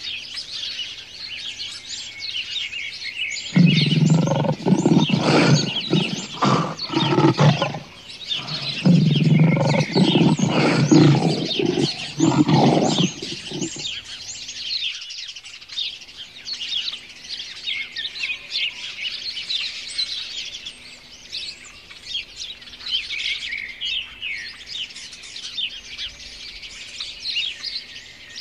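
Lion roaring in two loud, deep bouts of about four seconds each, one right after the other, over steady chirping birdsong; after the roars only the birds go on.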